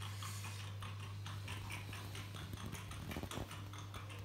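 Amiga 1200's hard drive ticking evenly, about five clicks a second, as it seeks and reads the video file into the player's buffer, over a steady low electrical hum. A brief low thump a little over three seconds in.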